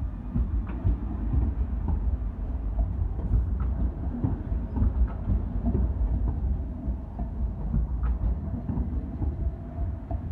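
Sheffield Supertram Siemens-Duewag tram passing close by on street track: a low rumble of steel wheels on the rails with scattered clicks and knocks, easing off near the end as it pulls away.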